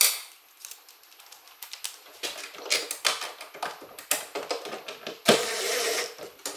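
Scattered clicks and taps of a cordless drill's bit and the wires against the metal breaker panel, then the drill running for about a second near the end as it drives a breaker terminal screw.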